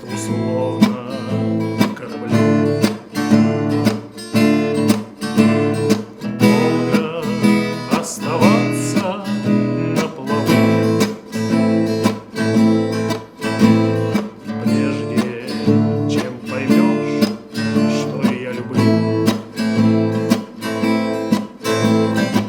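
Acoustic guitar strummed in a steady rhythm, instrumental with no singing.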